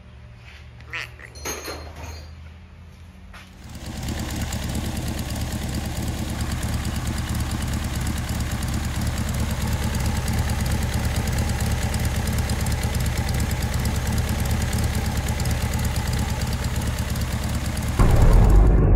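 A few light knocks, then from about three and a half seconds in a car engine running steadily with rapid, even exhaust pulses. It gets louder in a burst near the end.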